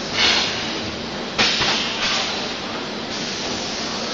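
Extrusion blow molding machine running with a steady mechanical din, broken twice by sharp hisses of compressed air venting, near the start and about a second and a half in.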